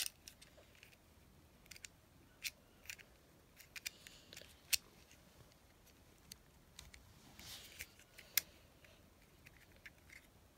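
Scattered light clicks and taps from a small plastic bracelet toy being handled, about a dozen spread irregularly, with a short soft rustle a little past the middle.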